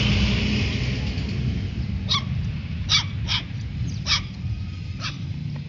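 Stray puppies giving about five short, high-pitched yapping barks, spaced irregularly from about two seconds in, over a steady low background rumble.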